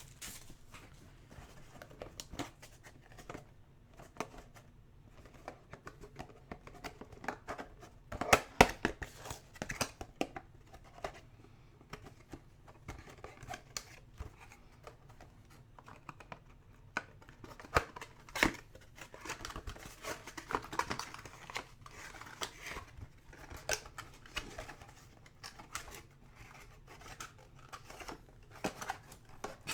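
Trading card packs and cards being handled at close range: irregular crinkling and tearing of wrappers with small clicks and scrapes as cards slide and are set down, and a few sharper ticks.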